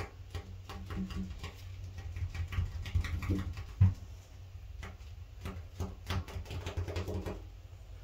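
Gloved fingers pressing and smoothing epoxy putty around a bathtub drain hole: irregular rubbing and clicking against the tub, with one louder knock a little before halfway, over a steady low hum.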